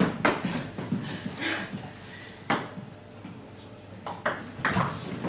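Table tennis ball clicking sharply off bats and the table in a doubles point. There are a few separate knocks early, a strong one about halfway, then a quicker run of hits near the end as the rally gets going.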